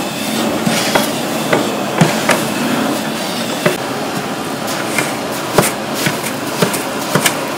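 A long metal spoon stirring cooked grain in a large aluminium cooking pot, knocking and scraping against the pot's wall at irregular intervals over a steady hiss.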